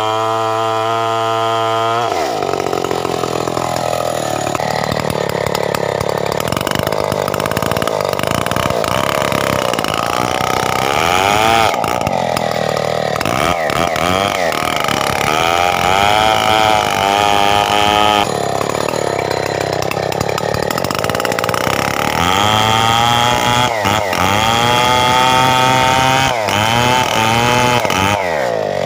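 Stihl 070 two-stroke chainsaw cutting coconut wood. It runs steady at full revs at first, then about two seconds in its pitch drops and keeps wavering as the chain works under load, with a few short dips along the way.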